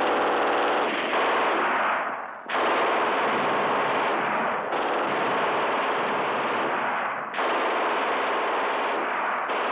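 Rapid automatic gunfire as a sound effect, in back-to-back sustained bursts of two to three seconds each.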